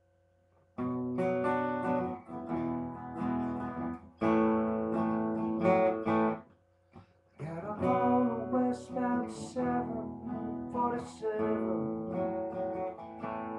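Acoustic guitar strummed in chords for a song's intro. It starts about a second in and breaks off briefly about halfway through.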